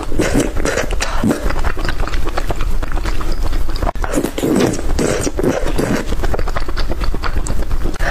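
Close-up eating sounds: chewing with many sharp clicks and cracks, going on throughout.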